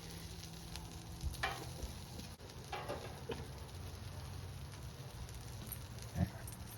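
Shrimp and rice frying in oil on a hot grill: a steady low sizzle, with a few short clicks or scrapes about a second and a half in, around three seconds, and near the end.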